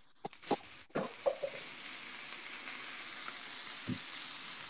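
Smash-burger beef patties sizzling as they fry in a hot pan, a steady hiss, with a few light clicks in the first second or so.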